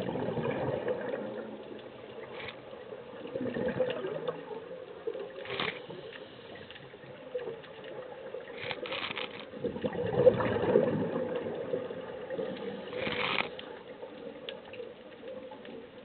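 Scuba diver breathing through a regulator underwater: hissing swells of breath every few seconds and gurgling bursts of exhaled bubbles.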